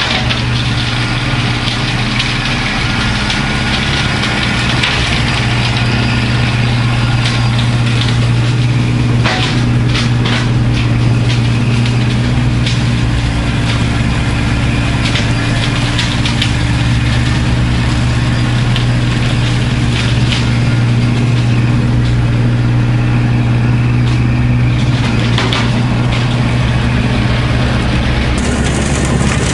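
Kubota B2650 tractor's three-cylinder diesel engine running steadily, with irregular cracks and snaps of brush and wood breaking as it is cleared, most of them about a third of the way in and again near the end.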